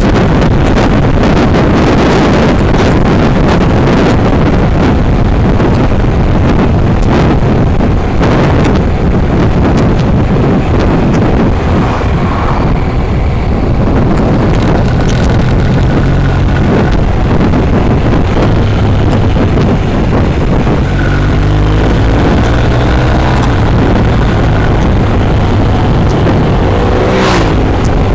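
Wind buffeting the microphone of a motorcycle-mounted camera at road speed, with the motorcycle's engine running underneath. About halfway through, the wind noise eases and the engine note comes through more clearly, its pitch falling and rising with the throttle in the last few seconds.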